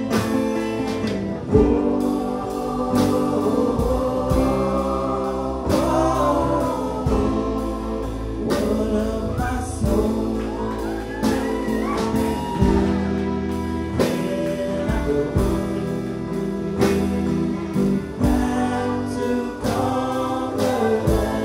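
Live bluegrass band playing, with fiddle and upright bass, and voices singing along.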